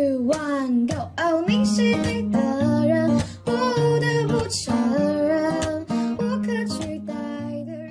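Background music: a song with plucked guitar and a singing voice.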